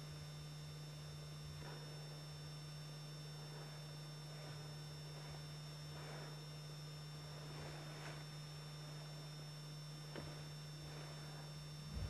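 Steady low hum with hiss from the recording, with faint scattered soft rustling noises and a single click about ten seconds in.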